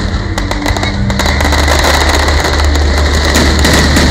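Aerial fireworks bursting overhead, a rapid run of bangs and crackling, over music with sustained low notes.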